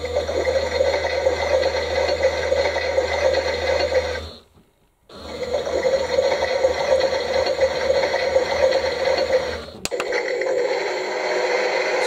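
Battery-powered toy washing machine's small motor turning its water-filled drum in wash-cycle bursts. It runs for about four seconds, stops for under a second, then runs again. Near the end a click comes and the motor changes to a lighter whir.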